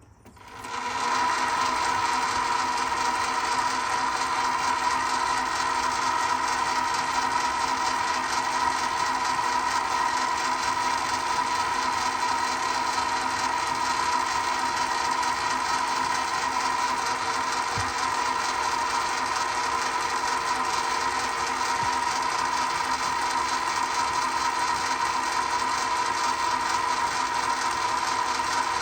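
Metal lathe starting up and running at a steady speed, with a whine from its drive.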